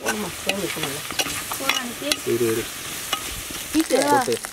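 Sliced onions and whole spices sizzling in hot gingelly (sesame) oil in a clay pot while they are stirred, with several short pitched scrapes of the utensil against the pot.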